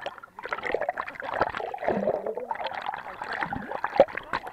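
Water churning and gurgling around a camera held under water, muffled, with many irregular little splashes and knocks.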